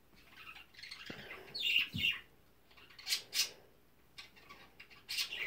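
A bird chirping in short, high calls that come in a few quick groups with pauses between.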